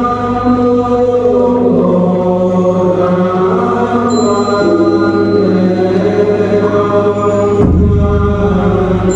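Slow Buddhist chant in long held notes over a steady low drone, the pitch shifting every couple of seconds.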